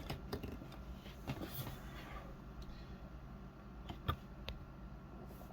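Handling noise: a few light clicks and taps, the sharpest about four seconds in, over a low steady hum.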